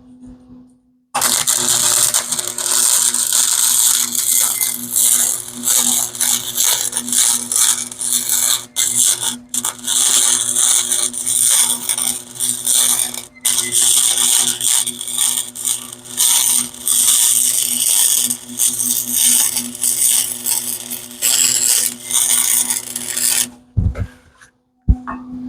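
Electric welding arc crackling steadily while a long bead is run on a steel shock mount. It starts about a second in, drops out briefly a few times, and stops near the end.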